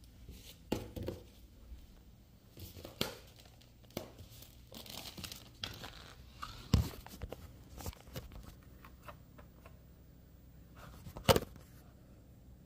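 Food packaging for the butter and cheese being torn open and crinkled, with a few sharp knocks of kitchen items, the loudest about two-thirds of the way through and near the end.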